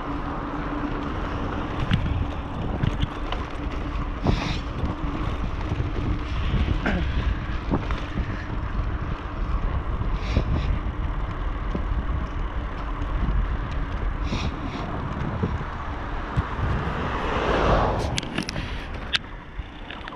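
Wind buffeting the microphone of a handlebar-mounted camera on a moving bicycle, with low rumble and scattered clicks and rattles from the bike rolling over a rough, patched road. A louder rush swells up near the end.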